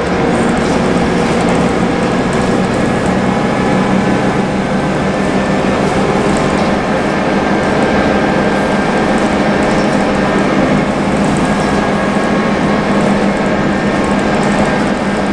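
Scania L94UB city bus heard from inside the passenger cabin: a steady engine and drivetrain drone with a constant hum, and interior fittings rattling lightly over it.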